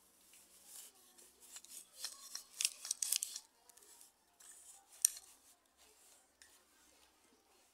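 Backstrap loom being worked: warp threads rasping and rustling against its wooden rods in a run of short scraping strokes, with a sharp click about five seconds in.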